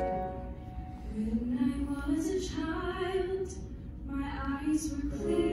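A woman's solo voice singing a slow musical-theatre ballad through a microphone, in long held notes that rise and fall. She sings two long phrases with a short breath between them about four seconds in.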